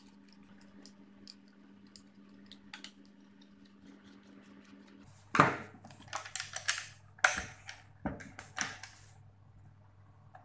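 Faint light clicks of a screwdriver working a bolt, then about five seconds in a series of loud knocks and clatters as a weed eater engine fitted with a metal mounting bracket is handled and set down on a tabletop.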